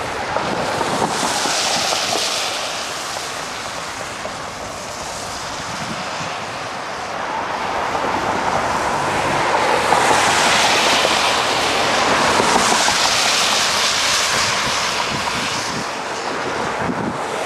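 Gusty wind rushing over the microphone, swelling louder about ten seconds in. Beneath it, the faint rolling of a departing Amtrak passenger train's cars on the rails as it moves away.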